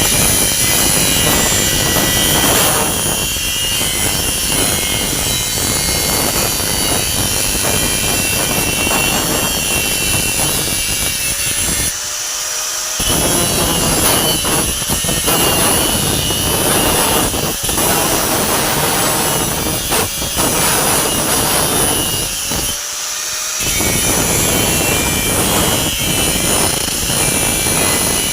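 Electric arc welding: a loud, continuous crackle and sizzle of the welding arc, which stops briefly twice, about twelve seconds in and again about twenty-three seconds in, before striking up again.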